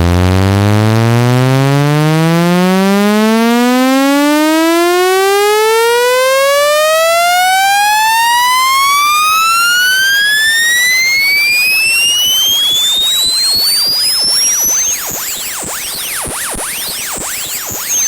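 Electronic test tone for clearing a speaker: a buzzy synthetic tone rich in overtones that glides steadily upward in pitch from a low hum to a high whistle. About 15 s in it tops out, turns a little quieter and breaks into a jumble of high warbling tones.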